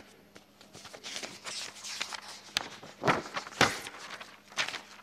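Sheets of paper rustling and shuffling close to a desk microphone as pages of a speech are handled, in a series of crackly bursts that grow stronger about three seconds in.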